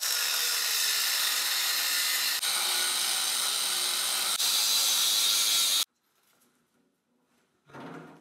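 Angle grinder cutting through an old steel water pipe: a loud, steady grinding hiss that dips briefly twice and cuts off suddenly about six seconds in.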